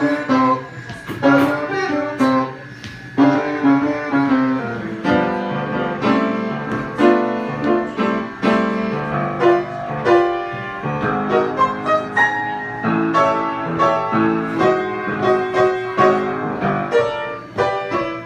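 Instrumental break in a live song, with no singing: a quick run of sharply struck notes.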